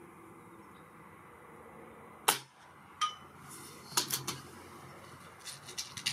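A PCP air rifle fires a single sharp crack a little over two seconds in. About a second later comes a smaller click with a short metallic ring, then clusters of light mechanical clicks as the rifle is cycled for the next shot.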